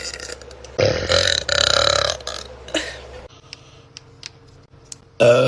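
A woman's deep burps: one about a second in that lasts over a second, and another loud one starting just before the end, with a few faint clicks in the gap between them.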